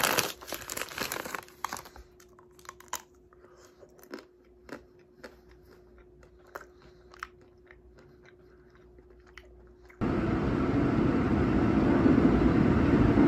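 A plastic ice-cream bar wrapper crinkling as it is pulled open, then scattered crunchy bites into a chocolate-coated ice-cream bar with nut pieces, over a faint steady hum. About ten seconds in it cuts to the loud, steady rumble of a moving subway train heard from inside the car.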